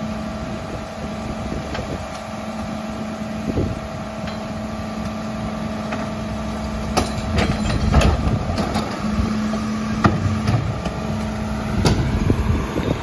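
Mack LEU rear-loader garbage truck's diesel engine idling with a steady hum. Plastic recycling carts are tipped by hand into the rear hopper, with a knock a few seconds in and a run of louder knocks and clatters from about seven seconds in.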